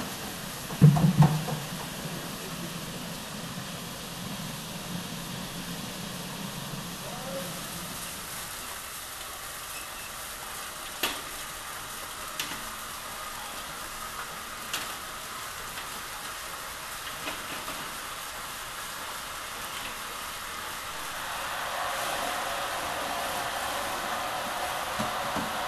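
Water rushing and hissing as washed rice and water stream from a rice-washing tank's spout into a stainless steel mesh basket, with a few loud knocks about a second in and occasional sharp clinks. The splashing grows louder near the end as buckets of water are poured over the rice in the baskets.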